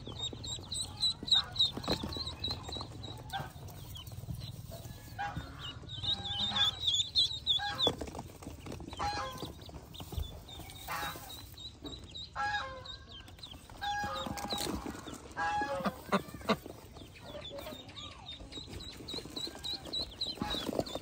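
Pekin ducklings peeping in runs of rapid high chirps, loudest at the start, midway and again near the end. Between them come short, repeated, lower calls from the adult Pekin duck on the nest.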